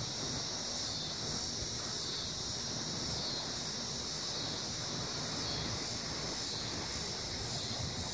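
Steady outdoor wind noise with a low rumble and a constant high hiss, as a thunderstorm builds. No distinct thunderclap stands out.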